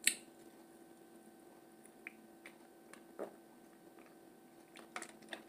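Quiet sips and swallows from a tumbler of iced coffee: a sharp click at the start, then a few soft mouth clicks and a gulp about three seconds in, over a faint steady hum.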